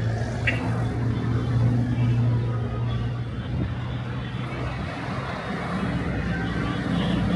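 Street traffic: a steady low engine hum over general road noise.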